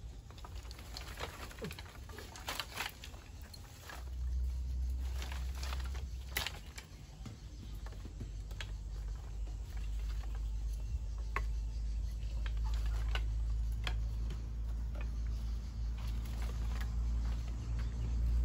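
Scattered light taps and clicks at irregular intervals, with a low rumble that comes in about four seconds in.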